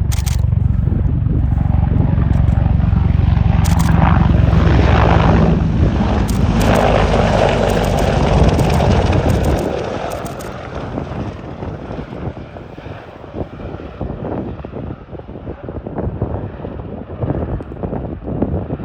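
Boeing AH-64E Apache attack helicopter making a low pass: loud, deep rotor and turbine noise that falls away about ten seconds in as it moves off. Bursts of rapid clicks cut through it.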